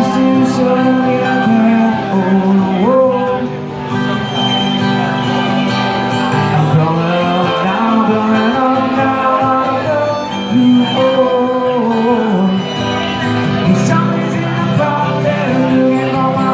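A live country-style band playing, with guitar and fiddle.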